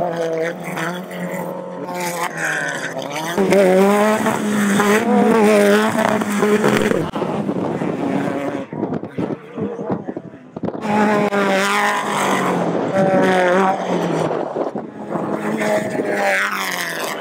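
Off-road race vehicle engines running hard, revving up and down repeatedly, with two louder spells about three and eleven seconds in and a short lull between them.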